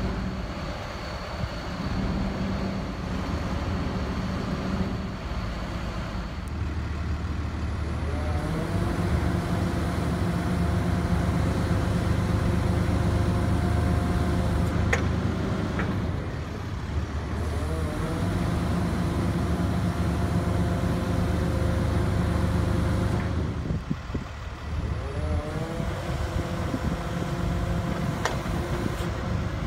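Peterbilt 335 bucket truck running to power its Terex Hi-Ranger TL50M hydraulic boom while the basket is moved: a steady low drone that speeds up and rises in pitch three times as the boom controls are worked, with a couple of sharp clicks about halfway through.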